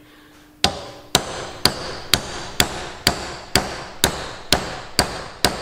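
A hammer striking a screwdriver held against a kingpin bush, eleven sharp metallic blows about two a second, each with a brief steel ring. The blows drive the screwdriver into the bush's split so the bush collapses in on its join for removal.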